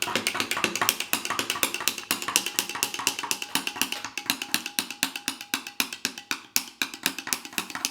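A spork stirring cola-flavoured drink powder into a drink, clicking quickly and evenly against the sides of the cup, about seven or eight clicks a second.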